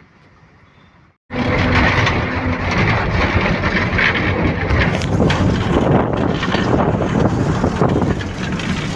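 Loud wind buffeting the microphone at the open window of a moving MSRTC bus, over the bus's engine and road noise. It cuts in abruptly about a second in, after a quieter stretch of cabin rumble.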